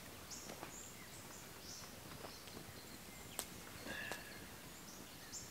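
Faint bush birds calling: scattered short, high chirps and calls over a quiet outdoor background, with a single sharp click about three and a half seconds in.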